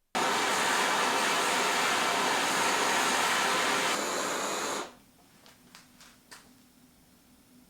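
A steady rush of air starts suddenly, eases slightly about four seconds in, and cuts off after about five seconds; a few faint clicks follow.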